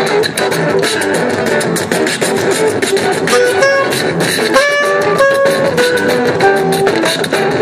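Live street band: beatboxing over electric bass and electric guitar. A few held notes come in about halfway through.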